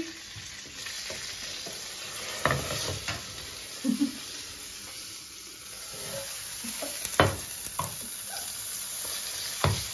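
Khachapuri frying in a pan, a steady sizzle, with several sharp knocks and clatters of the frying pan and its lid as the pan is handled and the flatbread turned; the loudest knock comes a little past the middle.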